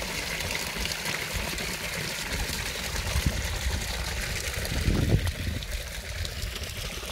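Shallow spring-fed stream trickling over rocks, a steady hiss of running water, with a low rumble underneath that swells about five seconds in.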